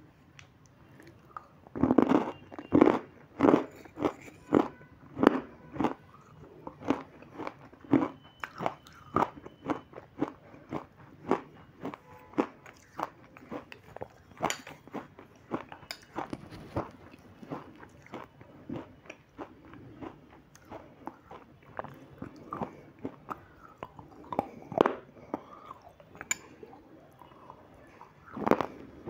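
Close-up crunching and chewing as a person bites into hard white lumps of cream, with sharp crunches about once or twice a second, loudest in the first few seconds.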